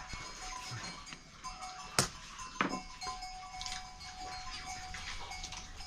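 Soft background music with long held notes, broken by a sharp click or knock about two seconds in and another shortly after.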